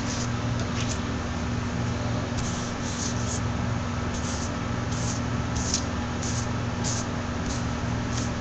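A steady low hum with short scratchy hissing noises every half second to a second.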